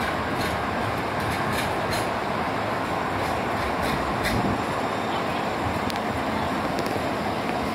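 Two coupled Siemens SD660 (Type 2) light rail cars rolling past on street-running track: a steady wheel-on-rail and running noise with a few faint clicks.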